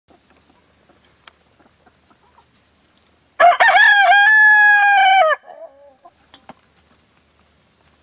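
A rooster crows once: a single loud call of about two seconds, starting about three and a half seconds in, held nearly level and then dropping at the end.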